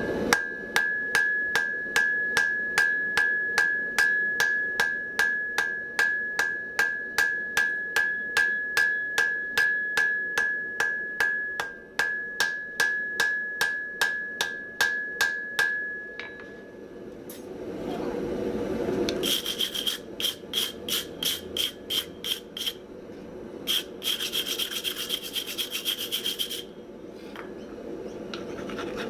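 Hand hammer forging hot mild steel on an anvil, drawing out a shovel blade: steady blows at about two and a half a second for some sixteen seconds, the anvil ringing under every blow. After a short break come two quicker runs of blows with a higher ring.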